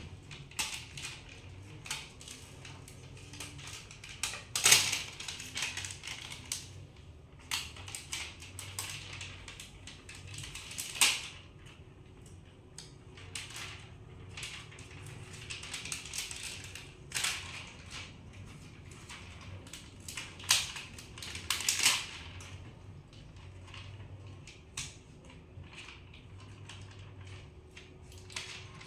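Irregular small clicks, crinkles and taps from sticker sheets being handled and stickers pressed onto cabinet doors, with a few louder clicks scattered through.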